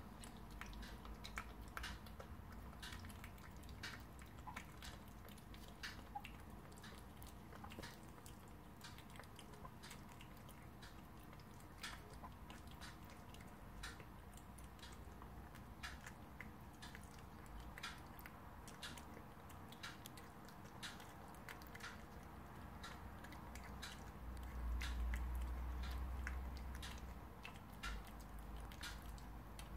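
A cat eating wet cat food slices in gravy from a plastic bowl: irregular small clicks and smacks of chewing. A low rumble comes in for a few seconds near the end.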